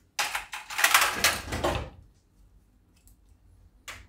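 Gas stove burner being lit with a hand-held spark lighter: a burst of gas hiss and clicking lasting about two seconds, then one sharp click near the end. The burner is being lit to preheat a salt-filled pan used as a stovetop oven.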